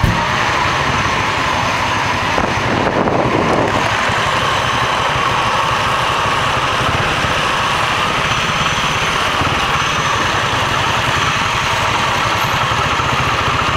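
Aprilia Moto 6.5's single-cylinder engine running steadily at a constant, low engine speed.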